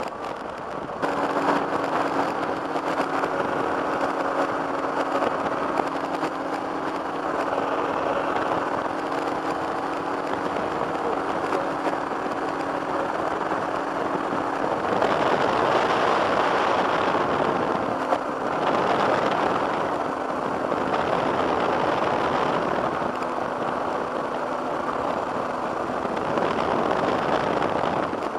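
Two-stroke engine of a flex-wing microlight running steadily in flight, under a heavy rush of wind on the microphone. The sound steps up about a second in, and the wind rush grows louder about halfway through.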